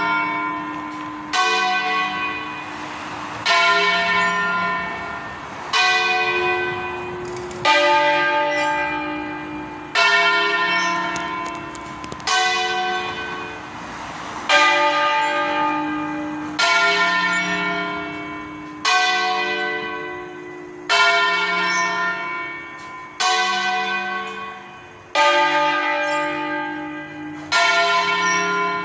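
Church tower bells rung 'a stanga', several bells sounding in turn. A fresh stroke comes about every two seconds, each ringing on and fading before the next one, with the pitch changing from stroke to stroke.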